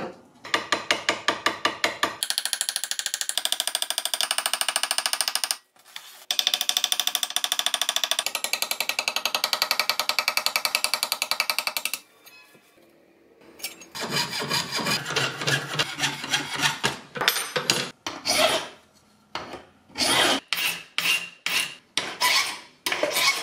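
A fast, very even run of strokes for most of the first half. Then, after a short lull, a flat hand file worked on a brass knife blank clamped in a bench vise, rasping in separate uneven strokes.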